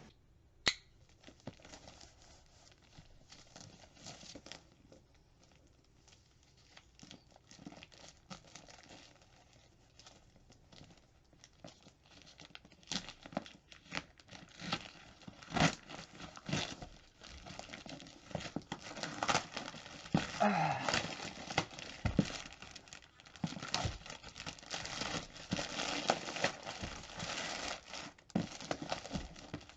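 A cardboard box and its packaging being opened by hand: tearing, crinkling and rustling, with scattered clicks and knocks. The handling is sparse and quiet at first and grows busier and louder about halfway through.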